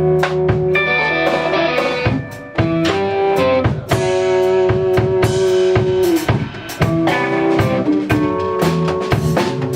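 Live band playing instrumental music: held pitched notes over frequent drum hits.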